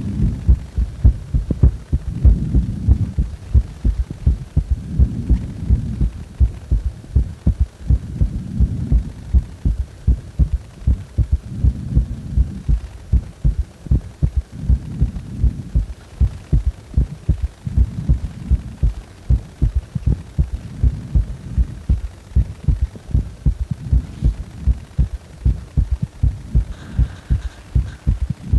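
Human heartbeat, a steady train of low thumps in which each beat carries a third heart sound (S3) after the usual two.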